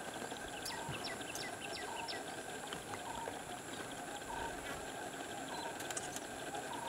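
Outdoor wildlife ambience with bird calls: a run of quick falling whistles in the first two seconds, and a short note repeated about once a second, over a steady high drone and hiss.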